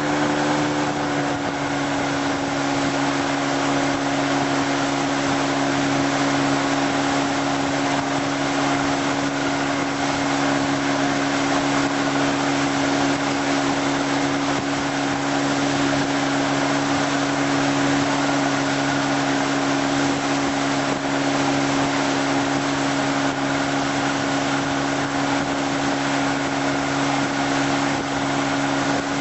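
Tow boat's engine running steadily at towing speed, a constant hum with a slight shift in pitch about a second in, under a steady rush of water and wind.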